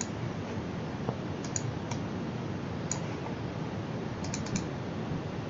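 Computer mouse clicking, a few scattered clicks and then a quick run of four about four seconds in, over a steady low background hiss.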